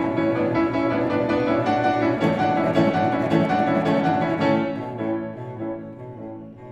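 Background music: a classical-style piece with piano and bowed strings, growing quieter in the last two seconds.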